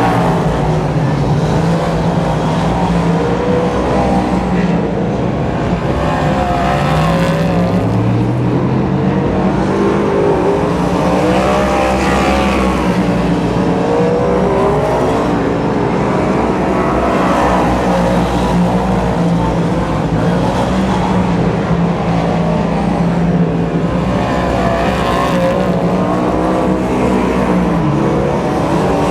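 Superstock race cars lapping a speedway track, their V8 engines rising and falling in pitch as they accelerate and back off. A Jaguar V8-powered superstock is among them.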